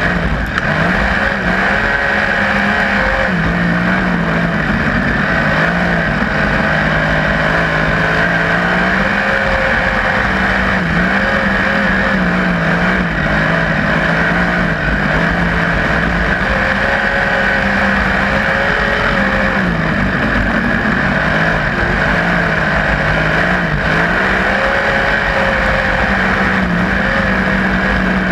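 A 360 winged sprint car's V8 engine running hard, heard from on board the car, its pitch rising and falling over and over as the throttle is worked around the oval.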